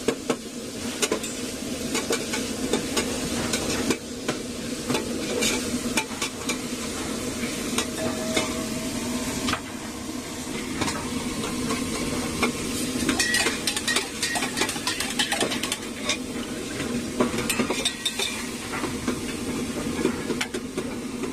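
Spoon stirring sugar into water in a stainless steel container, with frequent irregular clinks and scrapes against the metal, over a steady hum.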